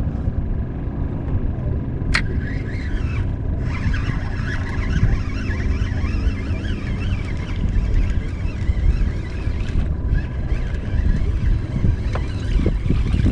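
A motor running steadily with a low rumble, with a sharp click about two seconds in.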